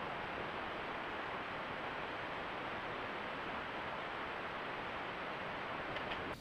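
Steady, even rushing hiss that holds level throughout, with no calls or distinct events in it.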